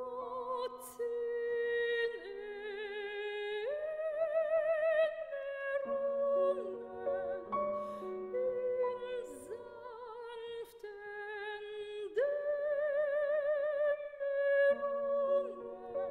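Slow background music: a melody of long held notes with vibrato over a soft accompaniment.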